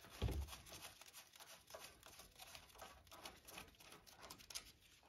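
Faint, irregular scratchy clicks of a Lexus RX front brake caliper slider pin bolt being unscrewed by hand, with a soft low thump just after the start.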